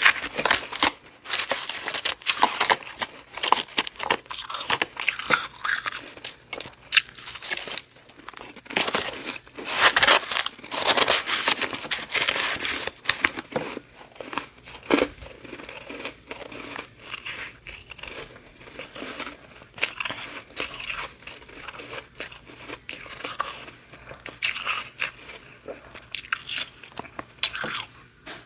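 Close-up crunching and chewing of freezer frost in the mouth: many quick, irregular crisp crunches and crackles in a continuous run of bites and chews.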